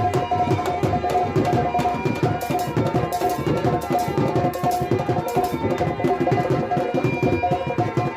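Instrumental interlude of Indian folk-theatre music: fast, steady hand-drum strokes with a repeating held melodic note over them.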